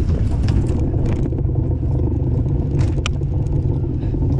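Fishing boat's engine running with a steady low rumble, and a single sharp click about three seconds in.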